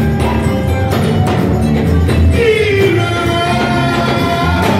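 Live band playing upbeat praise music, with a steady drum beat, heavy bass and singing. A singer's voice stands out clearly from about halfway through.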